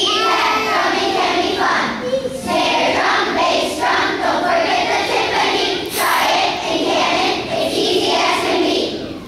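A choir of young children singing together in phrases, with short breaks between lines.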